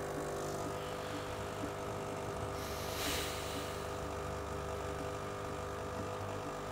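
Espresso machine's pump humming steadily while a shot is being pulled, with a brief hiss about three seconds in.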